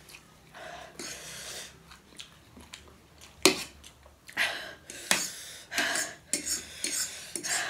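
Fork and spoon clinking and scraping against a plate of noodles, a few sharp clinks among softer scrapes.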